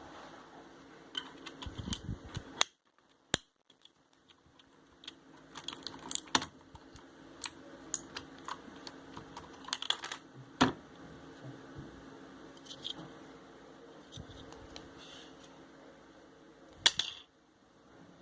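Keys of a Redragon Mitra mechanical keyboard being pressed, a string of irregular clicks and clacks with a short silent break about three seconds in.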